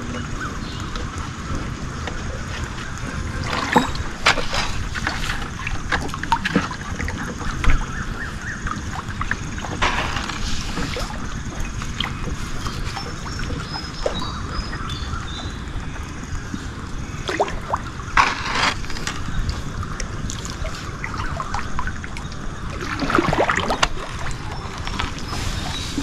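Water sloshing and splashing around a small boat in a mangrove creek, with several louder splashes spread through.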